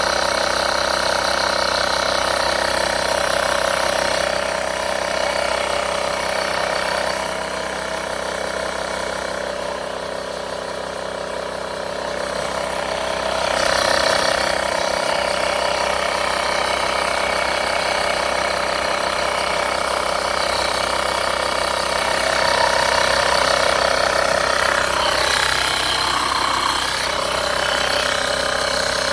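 Built-in air compressor of a portable jump starter running steadily while inflating, a small motor-driven pump with a constant even hum. It gets a little quieter in the middle stretch and louder again about halfway through.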